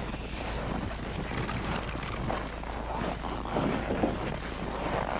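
Steady wind rumble and hiss on the microphone, with faint voices briefly about three and a half seconds in.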